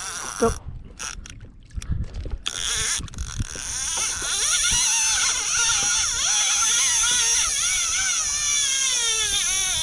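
Fishing reel's drag screaming as a big fish strikes the live bait and runs off line. A wavering, high whine with a steady hiss begins about two and a half seconds in, after a few knocks and splashes.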